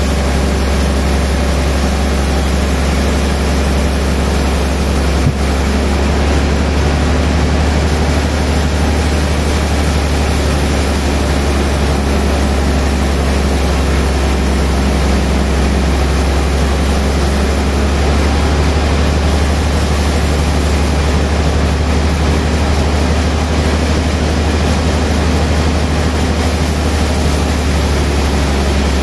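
A large sawmill band saw running steadily and cutting lengthwise through a big log, with a strong low motor hum under the noise of the blade in the wood. A single brief click about five seconds in.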